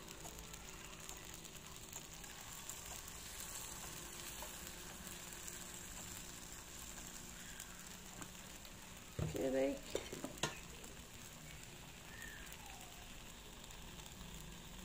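Takoyaki batter sizzling in the oiled wells of a hot cast-iron takoyaki pan as it is squeezed in, a steady gentle frying hiss. A brief louder sound breaks in about nine seconds in.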